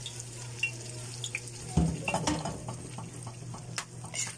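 Boiled mung beans and their cooking water poured from a pot into a hot wok, splashing loudly about two seconds in, with sizzling. Near the end a metal ladle stirs and clicks against the pan. A steady low hum runs underneath.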